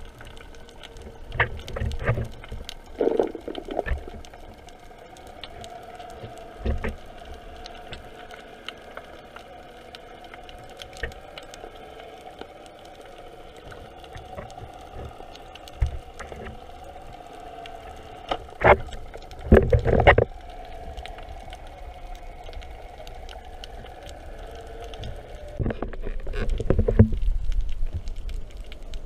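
Boat motor running with a steady hum, with water noise and scattered knocks and thumps. The loudest are a pair of heavy knocks a little past the middle and a louder rumbling spell near the end.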